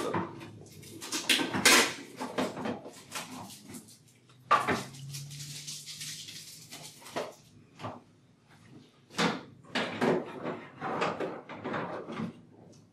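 Scattered clicks, knocks and rustles of plastic ingredient canisters and their lids being handled and set down.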